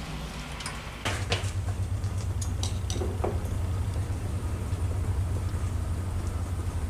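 A low, steady machine rumble comes in about a second in, with a few light clicks and taps over it.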